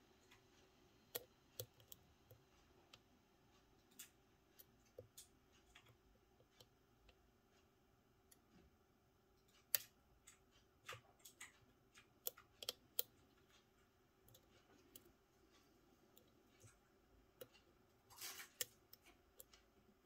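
Faint, irregular clicks of a lock pick and tension wrench working the pins of an M&C Matrix lock cylinder, with a short scraping rattle near the end.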